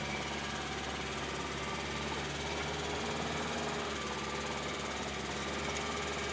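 Engine of a karakat all-terrain vehicle running steadily under way, at an even pitch.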